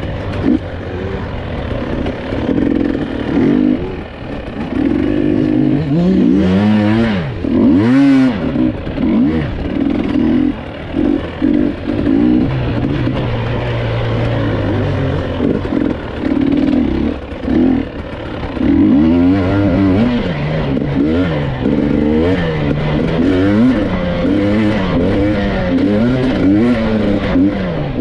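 GasGas EC 300 TPI two-stroke enduro motorcycle running hard on a trail, heard from the rider's seat. The engine pitch rises and falls every second or two as the throttle is opened and closed, with a brief deep drop off the throttle about eight seconds in.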